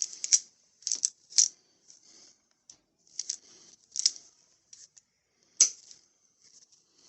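Steel locking pliers being handled and worked: an irregular series of sharp metallic clicks and short rattles, the loudest snap a little after five and a half seconds in.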